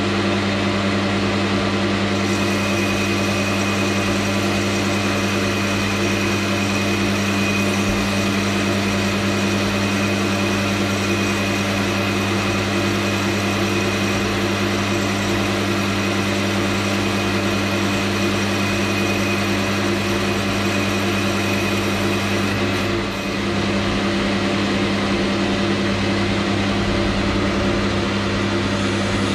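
Geared-head metal lathe running steadily with its chuck spinning while a boring bar takes a light cut inside a brass bush. A thin high tone rides over the machine's hum from about two seconds in until about 23 seconds in, when the level dips briefly and the lathe runs on.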